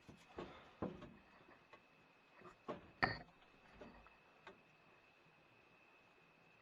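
A few light clicks and knocks over the first four seconds, the sharpest about three seconds in, then only a faint steady high tone over hiss. The clicks are handling noise picked up by the rifle's scope-mounted recorder.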